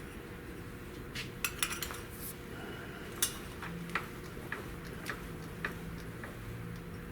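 A string of light, irregular metallic clinks and taps, starting about a second in, from a sheet-metal patch piece and hand tools being handled while the patch is bent to shape.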